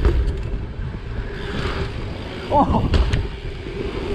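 Bike tyres rolling over a hard ramp surface, a steady low rumble with the bike's rattle, heard close from a rider-mounted camera. Sharp clicks and knocks come near the start and again about three seconds in, as the bike rides up a steep banked wall.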